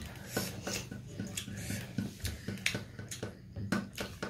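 Close-up eating sounds: wet chewing and mouth clicks at irregular moments, two or three a second, with light contact of fingers on stainless steel plates.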